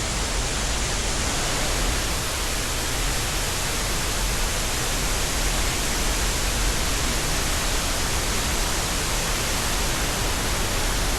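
Steady rushing of falling water from a large waterfall, an even unbroken noise with a low rumble underneath.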